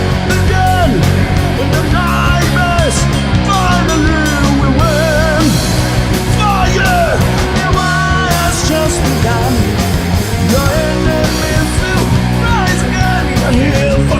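Heavy rock band playing live: distorted guitars and bass holding a steady low chord pattern under drums with constant cymbal hits, and a wavering, bending lead line above.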